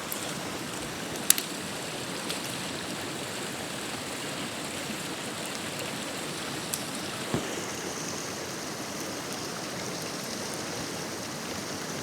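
A fire burning under a pot of hotpot broth heating up: a steady hiss with a few sharp crackles, the loudest about a second in. A higher hiss joins about halfway through.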